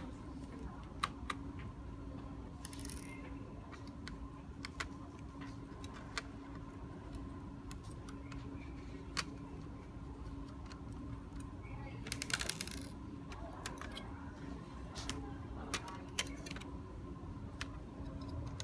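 Small screwdriver and screws clicking and tapping against a laptop's metal heatsink and fan as they are unscrewed and lifted out, in scattered sharp ticks, with two brief metallic rattles about three seconds in and about twelve seconds in.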